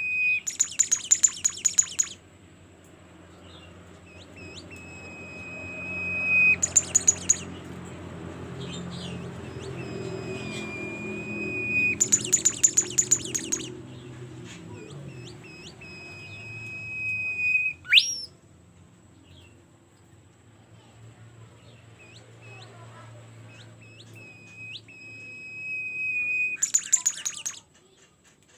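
Songbird singing in top form: long, steady, high whistled notes, each broken off by a burst of rapid chattering notes lasting a second or two, repeated four times, with one quick upward-sweeping note about two-thirds of the way through.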